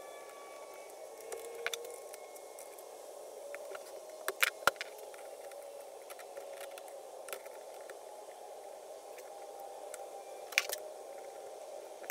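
Scattered light clicks and knocks of plastic housing parts and a screwdriver as an electric chainsaw is reassembled by hand, the sharpest about four and a half seconds in and again near the end, over a steady faint hiss.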